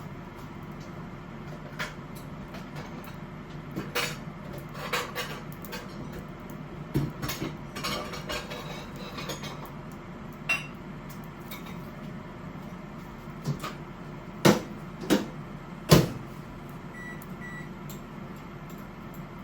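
Kitchen handling sounds: scattered knocks and clacks of utensils, dishes or containers being set down and moved, the loudest three near the end, over a steady low hum.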